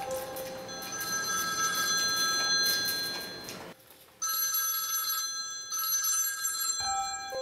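Mobile phone ringtone ringing, a pattern of sustained electronic tones; it drops out briefly about four seconds in, then carries on.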